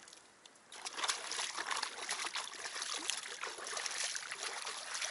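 River water splashing as a man standing in it scoops it up with his hands and throws it over himself, starting about a second in and going on without a break.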